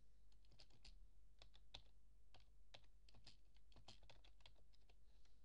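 Faint computer keyboard typing: irregular key clicks, a few a second, as a line of code is typed.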